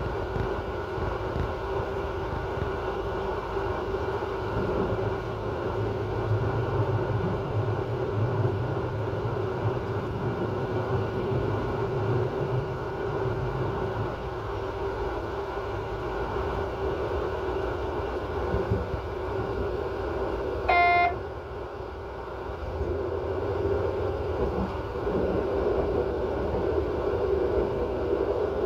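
Regional train running along the track, heard from inside its rear driver's cab: a steady rumble of wheels and running gear under a constant hum. About 21 s in, a short high tone sounds once.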